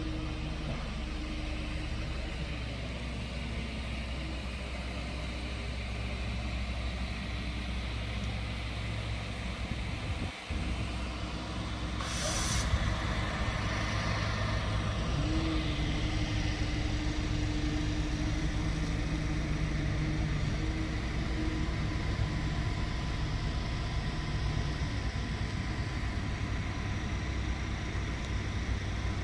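Narrow-gauge electric train standing at a station, its equipment humming steadily. A short burst of hissing air comes about twelve seconds in, followed by a steady drone that holds for several seconds.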